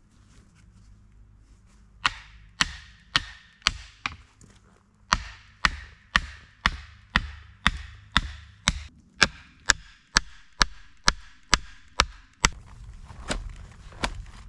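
Rhythmic chopping blows into wood, about two sharp strikes a second with a short ring after each. They start a couple of seconds in, pause once briefly, and stop near the end.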